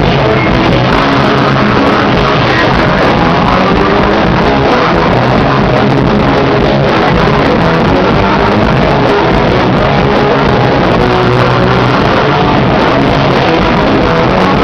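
Live rock band playing loud punk-style rock with guitars, the sound dense and unbroken.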